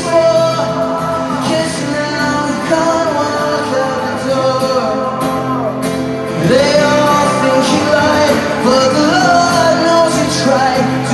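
A song playing: a sung vocal melody over backing music.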